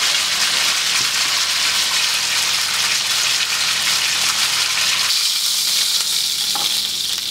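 A venison roast browning in hot vegetable oil in a skillet, with a steady, loud sizzle of frying. About five seconds in the sizzle changes, as the oil sizzles on in the pan with the roast lifted out.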